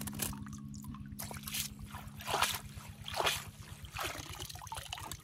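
Shallow muddy water splashing and trickling around a woven bamboo basket, with about five separate short splashes.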